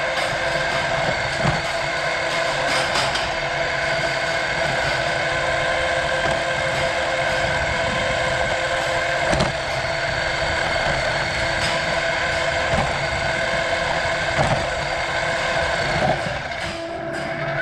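Remote-control car's electric motor and gears whining steadily while its tyres roll over concrete, with a few sharp knocks as it bumps along.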